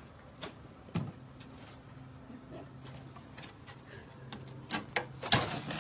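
A cat's paws and claws knocking and scrabbling against a wooden cabinet and its glass front: a few scattered knocks, the loudest near the end, over a low steady hum.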